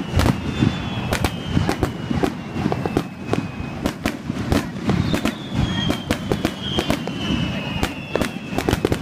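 Fireworks display close up: a rapid, irregular run of bangs and crackling reports over a low rumble. High whistling tones slowly fall in pitch, once near the start and again from about halfway on.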